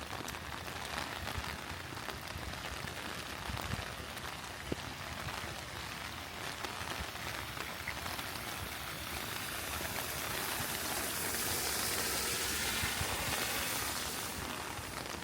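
Steady rain falling, with scattered sharp drips. About halfway through the rain grows heavier and hissier, then eases again near the end.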